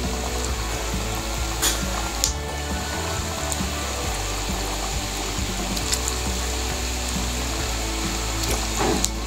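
Samosas deep-frying in hot oil in an aluminium pan: a steady sizzle of bubbling oil, with a few short clicks along the way.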